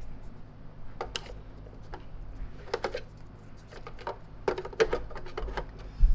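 Plastic vacuum attachment tools clicking and clattering as they are handled and fitted into the tool-storage bay of a Lindhaus HF6 canister vacuum, in a handful of separate knocks, with a louder thump near the end.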